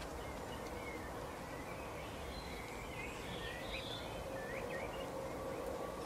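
Small songbirds chirping and twittering in short quick notes from about a second and a half in until near the end, over steady background noise with a faint hum.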